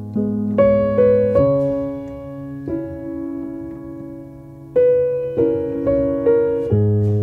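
Solo piano playing a slow phrase: single melody notes struck one after another over low chords, each ringing and fading. About halfway through, a chord is left to ring for about two seconds before a second run of notes.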